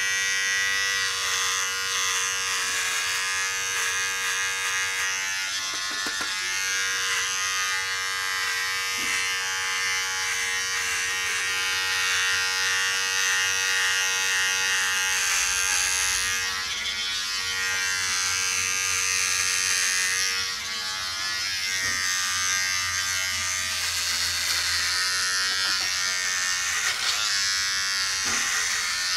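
Braun MGK3220 cordless trimmer running with a steady motor buzz as it cuts the hair at the side of the head and around the ear. The buzz wavers slightly in pitch about two thirds of the way through.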